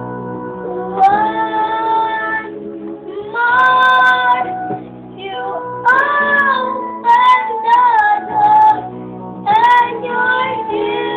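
A young girl singing over instrumental backing music, in several phrases with long held notes.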